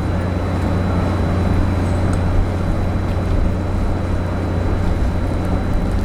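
Steady low drone of the cargo-passenger ship Hahajima Maru's engines, heard from on board during its approach to the berth.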